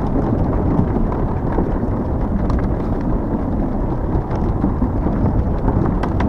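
Ride noise on a Hiboy S2 Pro electric scooter: a steady low rumble of tyres rolling and wind on the microphone, with scattered light clicks and knocks.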